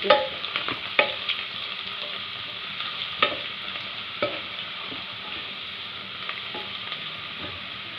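Chopped garlic, ginger and curry leaves sizzling steadily in hot sesame (gingelly) oil as they fry toward browning, stirred with a wooden spatula that knocks against the non-stick pan a few times.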